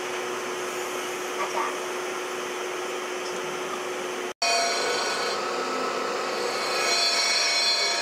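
Crankshaft grinding machine running, its abrasive wheel grinding a journal of a Suzuki 800cc engine's crankshaft under coolant, with a steady hum tone. The sound drops out for an instant about four seconds in, then the grinding is louder, with several steady ringing tones.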